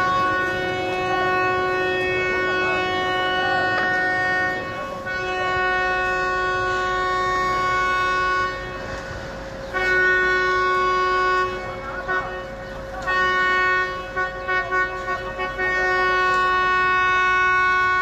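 Vehicle horns sounding in long held blasts, at least two at different pitches: one runs unbroken until near the end, while the other stops and starts in blasts several seconds long.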